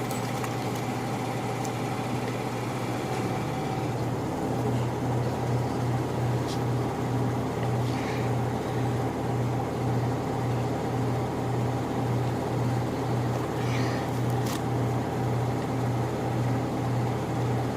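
Steady low mechanical hum that, about four seconds in, starts to throb evenly at roughly two pulses a second, from a machine vibrating close to the microphone.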